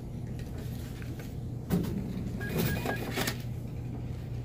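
Checkout counter sounds: a sharp knock, then rustling and three short, quick electronic beeps at one pitch about two and a half seconds in, over a steady low hum.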